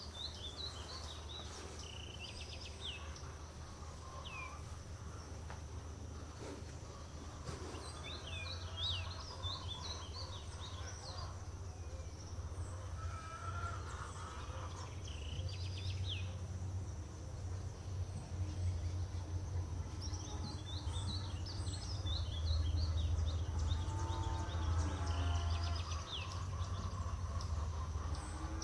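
Small birds chirping in clusters of quick high notes every several seconds, over a steady high tone and a constant low rumble.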